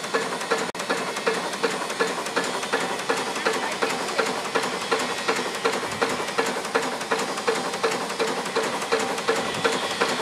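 Steam breakdown crane's steam engine exhausting in quick, even beats, about three to four a second, over a steady hiss of steam, as it hoists a load.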